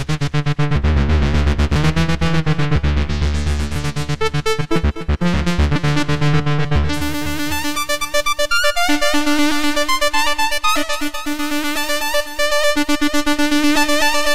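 GForce Axxess software synthesizer playing arpeggiated presets. First comes a fast, bass-heavy pattern of repeated notes with a brightness that swells and fades. About seven seconds in it switches to a brighter, higher pattern of quick notes over a steady held note.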